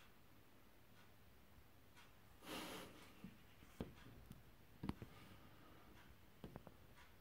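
Near silence: quiet room tone, with a brief rustle about two and a half seconds in and a few faint clicks and taps after it.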